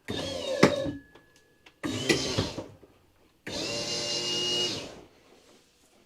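Replacement electric slide-out motor of a cable-driven RV slide running in three short bursts, the last and steadiest about a second and a half long, with a sharp click in the first. It is running the slide the wrong way because its wires are connected backwards.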